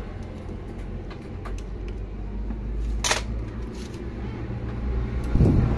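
Small metal engine parts clicking and tapping as they are handled, with one sharper metallic clink about three seconds in, over a low steady rumble.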